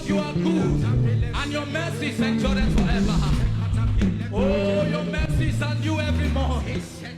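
Live church worship music: a band playing with voices singing over a steady bass line, easing off briefly near the end.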